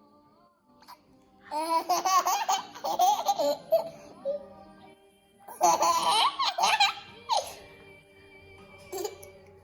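A small child laughing in two long bouts of giggly laughter and a short one near the end, over faint background music.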